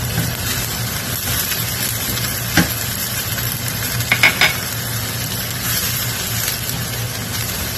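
Ground beef and diced onion sizzling in a stainless steel frying pan, being stirred with a wooden spoon, over a steady low hum. The spoon knocks sharply against the pan once about two and a half seconds in and a few times around four seconds in.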